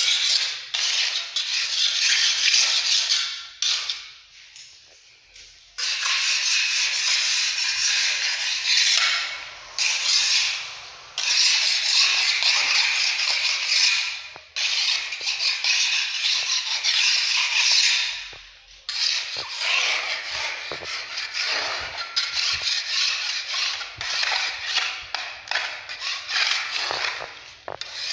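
Metal putty knife scraping a white wall in repeated rasping strokes. The scraping comes in spells of a few seconds with short pauses, the longest about four seconds in.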